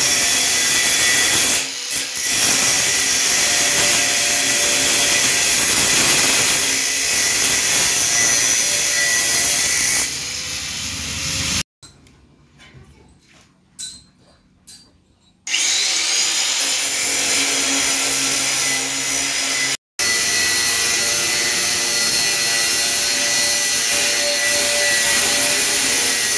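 Handheld angle grinder working steel flat bar, a loud steady whining hiss that eases off briefly about two seconds in. Partway through it drops away for a few seconds, leaving only a few faint knocks, then starts again and runs on steadily.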